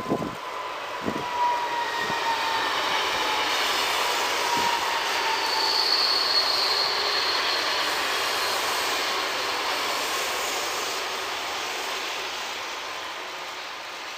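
A train passing, building to its loudest about six seconds in and slowly fading. A thin whine slides slightly lower over the first few seconds, and a brief high wheel squeal sounds at the loudest point.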